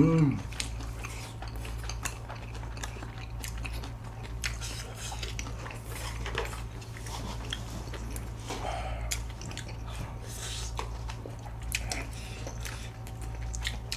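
Close-miked eating sounds: chewing and soft mouth noises, with scattered light clicks of chopsticks and a spoon against dishes, over a steady low hum.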